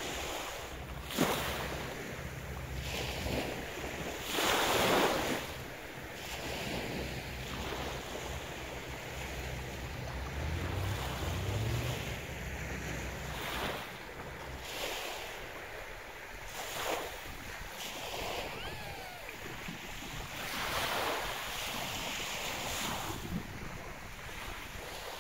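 Waves washing onto a sandy beach in repeated surges, with wind buffeting the microphone. Under them for the first half, a low boat engine drones steadily, rises briefly in pitch, then stops.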